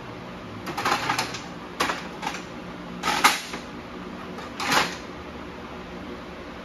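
Clattering knocks and scrapes of metal engine parts being handled during an engine teardown, in four short bursts over about four seconds.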